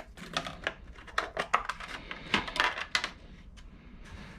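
Packaging of a pair of RAM modules being opened and handled: a quick run of clicks and crackles that dies down after about three seconds.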